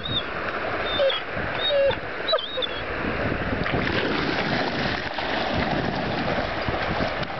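German shepherds splashing and wading through a shallow stream, with a few short high whines from a dog in the first couple of seconds.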